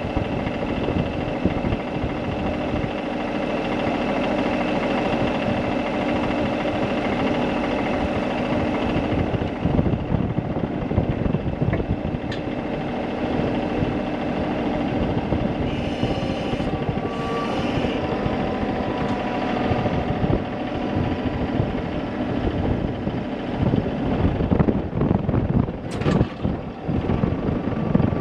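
An engine runs steadily, with a rough, rattling low end, and there is a sharp knock near the end.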